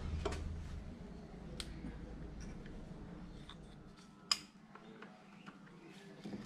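Scattered small metallic clicks and taps of hands and tools on a motorcycle's front brake caliper as it is slackened off for a front brake pad change, with one sharper click about four seconds in. A low hum underneath fades out around the same time.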